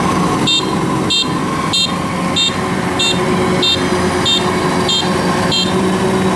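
Combine harvester engine running steadily under a high electronic warning beeper that sounds nine times at an even pace, about every two-thirds of a second.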